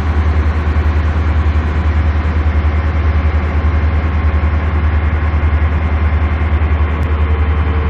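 A freight ferry's engine running with a loud, deep, steady throb and an even rapid pulse.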